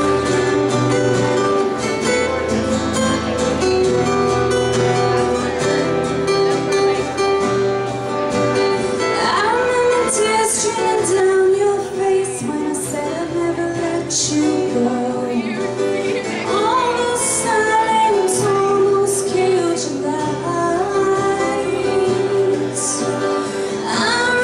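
Two acoustic guitars playing a slow song, with a woman's singing voice coming in about nine seconds in.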